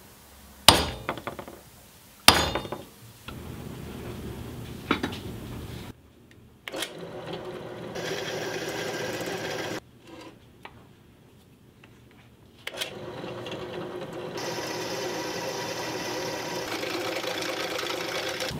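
Two sharp hammer blows on a center punch, marking hole positions on a short piece of rusty steel bar stock, followed by a lighter tap. Then a drill press runs, its bit boring through the steel, in several stretches that start and stop abruptly.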